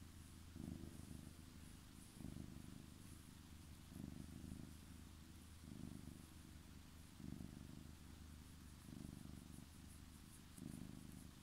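Domestic cat purring softly while being stroked, a low rumble that swells with each breath, about every second and a half.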